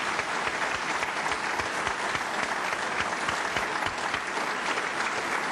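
A large audience clapping steadily in a hall, a sustained round of applause.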